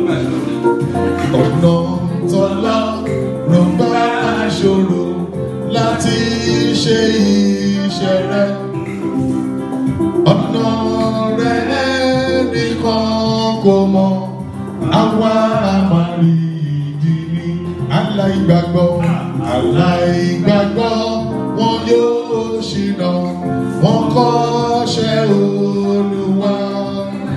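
A man singing into a microphone over amplified backing music, his voice wavering and gliding between notes in long sung phrases.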